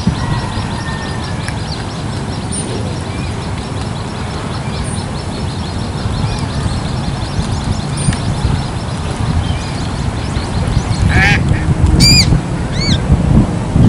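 Coot chicks peeping: a thin, rapid run of high calls, with a few louder, sharper arched calls near the end, over a steady low rumble.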